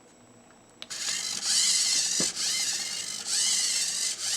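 The platform's three hobby servos whir through their gears as the controller's automatic mode sweeps them together, starting with a click about a second in. The whine rises and falls in repeated surges of about a second each.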